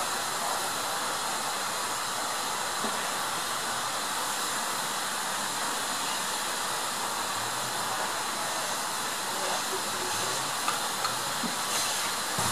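LNER Class Y7 0-4-0T tank locomotive No. 985 blowing off steam: a steady, continuous hiss of escaping steam, with a few light clicks near the end.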